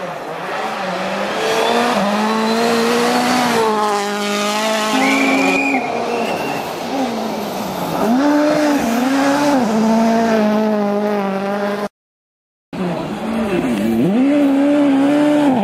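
World Rally Cars, among them a Ford Fiesta RS WRC with its 1.6-litre turbocharged four-cylinder engine, driving flat out on a snow stage. The engine pitch climbs and drops repeatedly with gear changes and lifts. The sound cuts out for under a second about 12 seconds in, then another car is heard revving.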